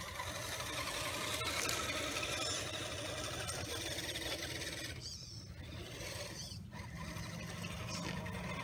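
RC crawler's electric motor and gear drivetrain whirring as the truck drives over pine straw. The sound dips for a second or two past the middle, then comes back up.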